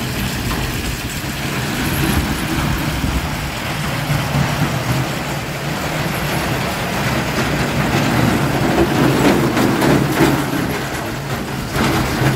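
Children's roller coaster train rumbling along its steel track, growing louder as it comes into the station, with a few clacks near the end.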